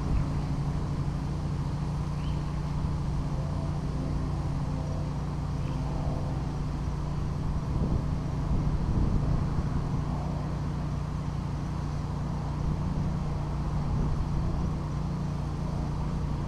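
Wind buffeting the camera microphone, a steady low rumble.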